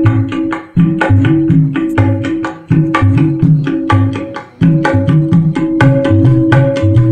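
Ketipung hand drumming in a fast dangdut pattern: deep pitched strokes and sharper slaps in quick phrases, each broken by a brief pause. It is played through an amplifier as a sound test.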